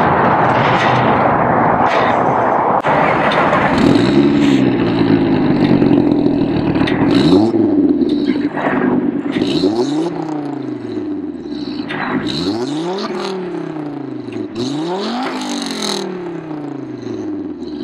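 A Volvo S60R's turbocharged 2.5-litre five-cylinder, fitted with a downpipe, free-revved through its twin exhaust tips while parked. About five revs, each climbing quickly and falling back to idle, follow a few seconds of loud rushing noise.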